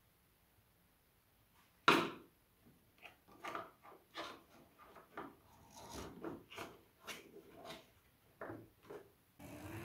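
Wooden marble-run track pieces being set down and fitted together by hand: one sharp wooden knock about two seconds in, then a run of lighter clacks and taps. A louder rustling begins near the end.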